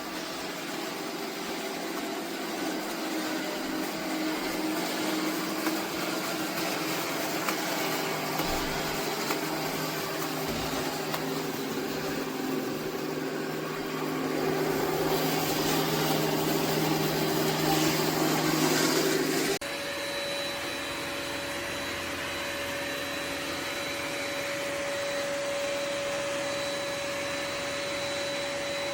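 Ecovacs Deebot X9 Pro Omni robot vacuum running with a steady motor whir. It grows louder after the middle, then about two-thirds of the way in it cuts abruptly to a different steady hum with a clear high tone.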